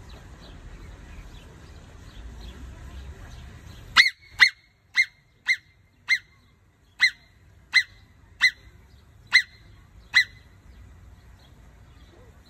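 Alpine marmot giving a series of about ten short, shrill alarm whistles, starting about four seconds in and repeating every half second to a second until near the end.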